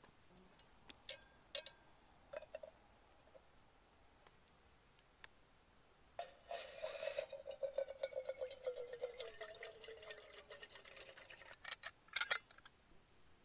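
Water poured from a plastic bottle into a steel cooking pot for about five seconds, starting about six seconds in, its tone slowly falling as it goes. A few light clicks come before it, and a couple of sharper clicks near the end.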